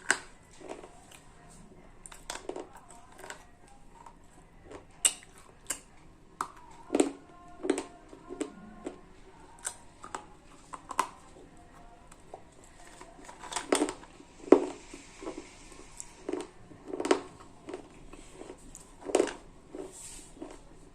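Slate pencil being bitten and chewed close to the microphone: sharp, dry crunches and snaps at an irregular pace, about one or two a second, some much louder than others.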